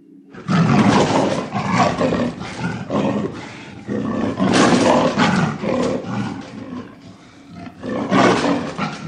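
Leopard calls in a run of bursts, starting about half a second in, loudest in three stretches: near the start, around the middle, and near the end.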